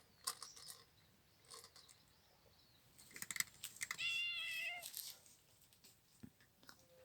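A cat meows once, a drawn-out call of just under a second about four seconds in, after a scattering of light clicks.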